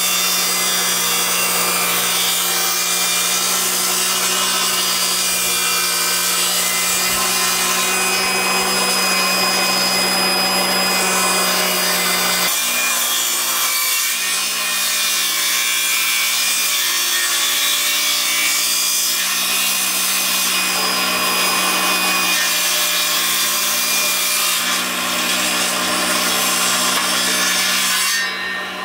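A power tool cutting or shaping wood, running steadily at an even level, then stopping shortly before the end.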